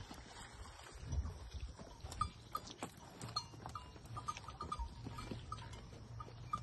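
Cattle, water buffalo and people walking over dry, stony ground, with scattered footfall clicks and short high clinks repeating irregularly.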